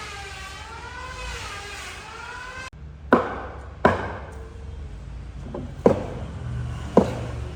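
A wavering tone glides up and down over a steady noise, cuts off suddenly, and is followed by four sharp blows on wood, unevenly spaced, like chopping or mallet strikes.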